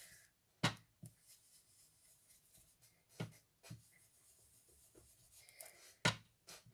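Handheld foam ink-blending tool rubbed over card stock, a faint scuffing, with a few sharp taps. The loudest tap comes about six seconds in, as the blender is dabbed onto an ink pad.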